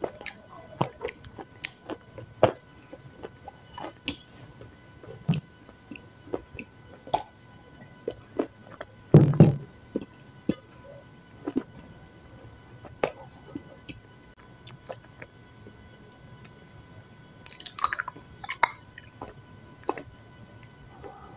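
Close-miked mouth sounds of a person chewing a soft, pasty food, with many short wet clicks and lip smacks. A louder low thump comes about nine seconds in, and a brief rustle around eighteen seconds.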